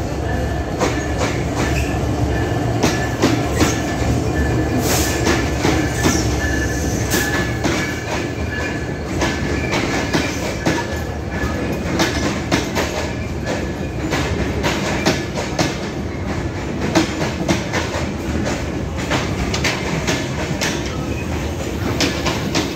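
Bangladesh Railway express train arriving at a station platform. A diesel-electric locomotive's low engine rumble is heaviest for about the first eight seconds, then the passenger coaches roll past with a steady run of wheel clicks over the rail joints and a faint thin high squeal.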